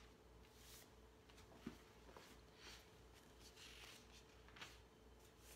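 Near silence: room tone with a faint steady hum and a few faint rustles and a small click as paper is handled.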